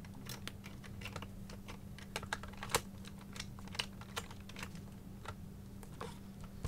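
Irregular small plastic clicks and clatter from a Transformers Cybertron planet toy being handled as its pop-out missile cannons are pushed back into the sphere, with one sharper click about three seconds in.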